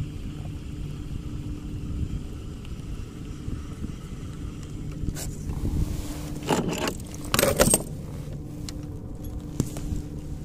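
Metallic rattling and scraping as a hand handles a fishing kayak's pedal drive, loudest about two-thirds of the way through, over a steady low hum.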